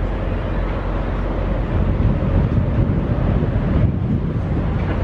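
Steady rumble of road and wind noise from a car driving at highway speed, swelling slightly in the middle.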